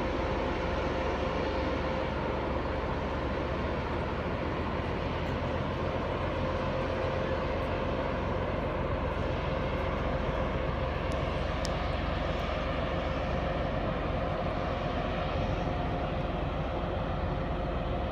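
Cargo ship's engines and machinery giving a steady low drone with a constant hum.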